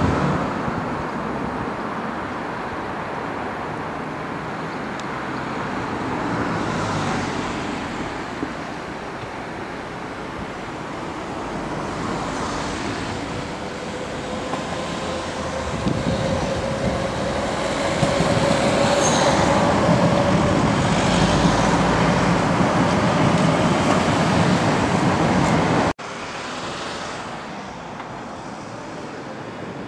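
London Underground C or D Stock train approaching on the District line tracks: steady running rumble growing louder as it nears, with a faint whine rising slightly in pitch. The sound cuts off sharply near the end to quieter, more distant train noise.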